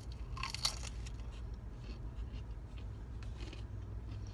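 A bite into a crunchy battered fried shrimp in the first second, then quieter chewing with faint scattered crunches, over a steady low hum from the running car.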